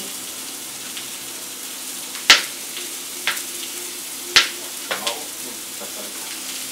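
Onions and tomatoes frying in oil in a pan with a steady sizzle, while a spatula is stirred through them. Two sharp clinks of the spatula against the pan, about two and four seconds in, are the loudest sounds, with a few lighter taps after.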